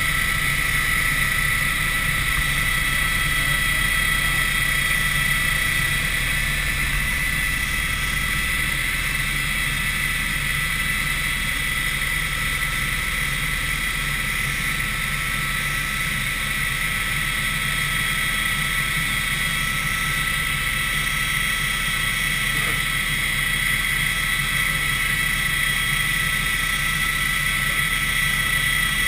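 Helicopter in flight heard from inside the cabin: a steady drone of engine and rotors with a constant high whine over a low hum.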